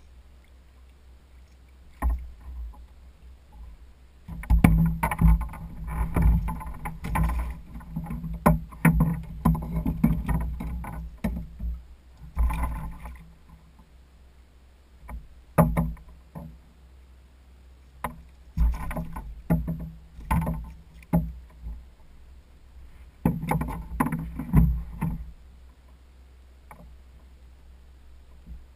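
Irregular knocks, thumps and rubbing on the plastic hull of a Hobie Adventure Island kayak as a caught flounder and fishing gear are handled aboard. The knocks come thick and fast for the first half, then in shorter bursts with pauses between, and die away near the end.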